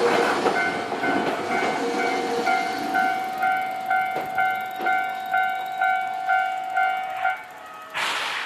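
Japanese level-crossing warning bell dinging a little over twice a second, over the fading rumble of a passing Nankai electric train. The bell stops about seven seconds in, the sign that the train has cleared the crossing, and a short rush of noise follows near the end.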